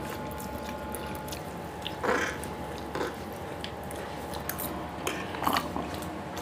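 Close-miked eating sounds: Maggi noodles being slurped and food chewed, with short louder slurps about 2 and 3 seconds in and twice around 5 seconds in, over a faint steady hum.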